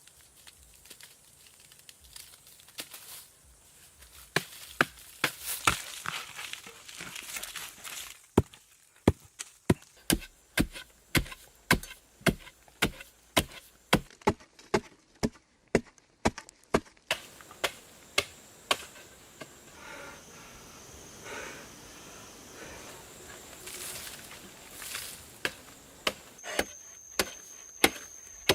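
Wood being chopped with a hand tool: a long series of sharp, regular strikes, about two a second, stopping a little past the middle.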